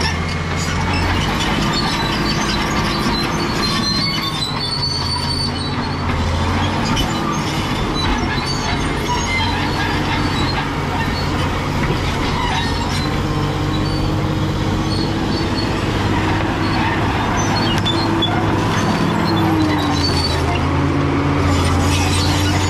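Caterpillar D7G crawler bulldozer working: its diesel engine running under load, the pitch shifting now and then and dropping near the end, with squealing and clanking from the steel tracks.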